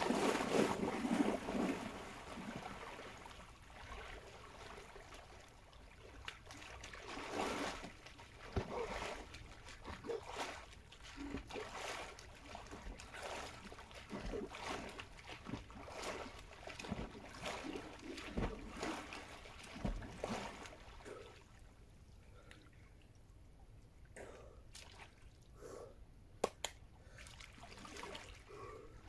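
Water splashing as a person wades into icy lake water, loudest in the first two seconds. It is followed by irregular sloshing and lapping with small knocks.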